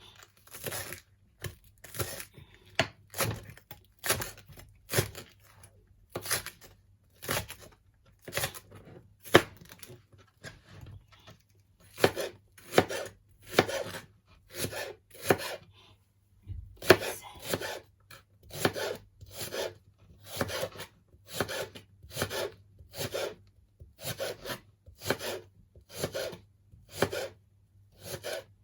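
Knife chopping spring onions on a wooden cutting board: steady sharp strokes, about two a second, with a short pause about two-thirds of the way through.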